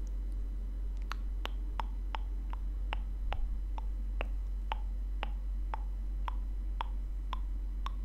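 Wet mouth clicks made with the tongue and lips close to the microphone, a steady run of short sharp clicks about two to three a second starting about a second in. A steady low electrical hum sits underneath.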